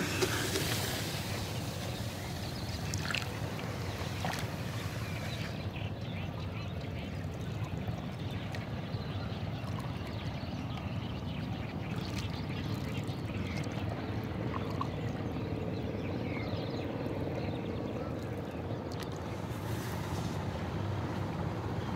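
Wooden rowboat being rowed with a long single oar, the oar swishing and splashing in the water with a few knocks. A steady low rumble runs underneath.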